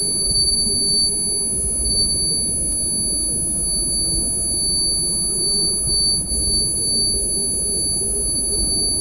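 A continuous high-pitched electronic beep tone, held steady without a break, over a dense low rumbling noise.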